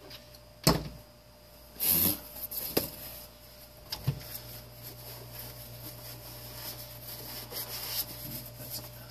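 Hand disassembly of a plastic space-heater housing: a loud sharp click, a short scraping rattle, then further clicks and a knock as parts and tools are handled, followed by a steady low hum.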